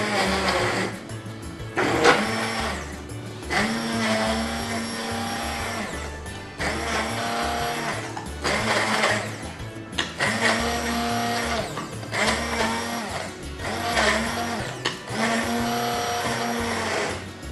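Hand-held immersion blender puréeing cooked okra in a pot, pulsed on and off in a dozen or so short bursts so that it is only half blended, not worked hard. Background music plays under it.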